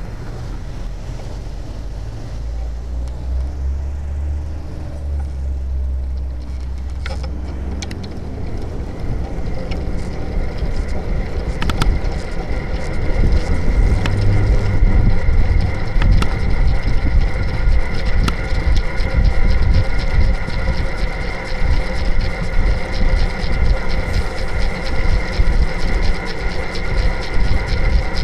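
Wind noise and road rumble on a bicycle-mounted action camera riding in city traffic, getting louder after several seconds as the bike picks up speed. A few sharp knocks are heard along the way.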